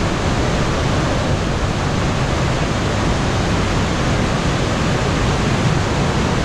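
Steady, loud rush of Kanarra Creek tumbling over the falls and running fast and shallow through a narrow sandstone slot canyon.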